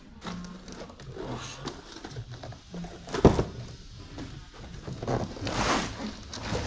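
Cardboard packaging of a brake kit being handled: a sharp knock about three seconds in as a boxed part is set down, then rustling of cardboard and paper near the end.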